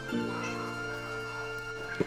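Background music: soft sustained notes, with a change of chord just after the start, then held steady.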